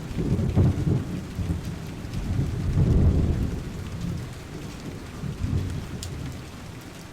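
Thunder rumbling over heavy rain, swelling twice and then dying away.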